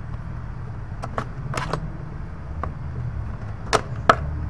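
A screwdriver prying at the latch tabs of a plastic Toyota fuse box: scattered scrapes and clicks of plastic, ending in two sharper clicks near the end, over a steady low hum.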